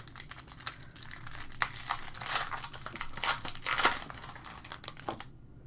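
Trading card pack wrapper being torn open and crinkled by hand, a dense crackle that stops about five seconds in.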